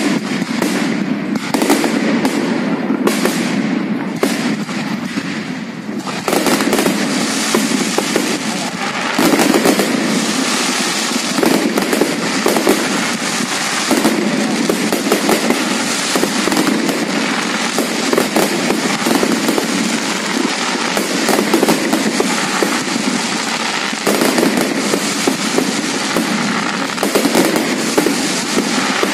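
Fireworks display going off as a rapid barrage of bangs and crackling bursts. Separate bangs in the first few seconds give way to a dense, continuous crackle from about six seconds in.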